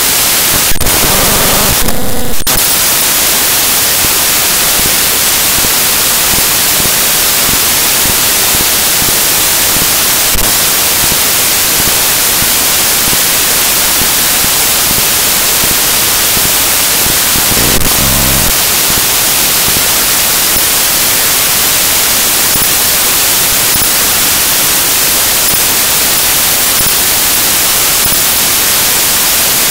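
Loud, steady hiss of static, with a few short crackles near the start and a couple more later on.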